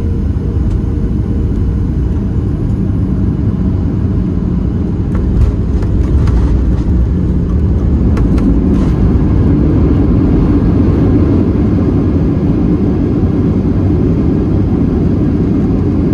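Inside the cabin of a Boeing 737-700: steady rumble of its CFM56 engines and airflow on short final. About five seconds in comes the touchdown, a sudden thump followed by rattles. The rumble then grows louder as the thrust reversers deploy and the jet rolls out on the runway.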